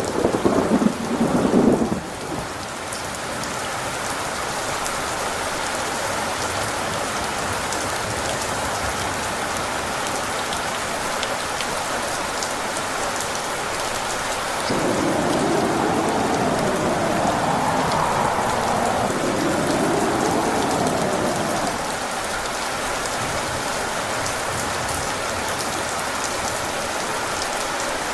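Steady rain with thunder. A thunderclap rumbles and fades out within the first two seconds, and about halfway a louder rolling rumble starts suddenly, wavering up and down in pitch for about seven seconds before the rain is left alone again.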